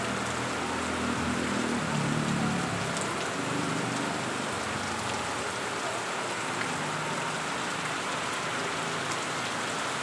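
Steady heavy rain falling on tree foliage and onto flooded ground.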